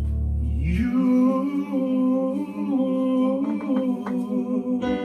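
A man singing a long held note of a slow love song over a backing track. A deep sustained chord underneath stops about a second in.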